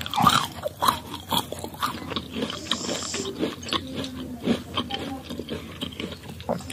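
Close-up chewing and crunching of crisp raw mango slices: irregular, crisp crunches and mouth sounds.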